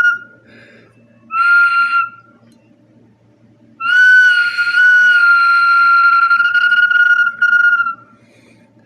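Whistle bottle blown, giving one steady, breathy whistle tone: a short note about a second in, then a long held note from about four seconds in, broken briefly near the end.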